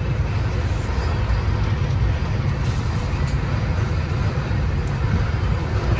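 Steady low rumble of a moving Indian Railways passenger train heard from inside a sleeper coach, with a few faint clicks.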